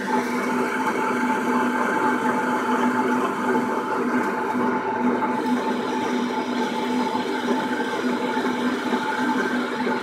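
Biogas slurry mixer running steadily, its stirring shaft churning the slurry in the tank: a constant machine hum with several steady tones over a noisy wash.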